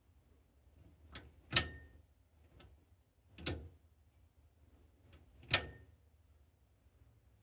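Sharp metallic clicks and knocks: three loud ones about two seconds apart, with fainter ones between, and a brief ringing after two of them, as of tools or small metal parts being handled.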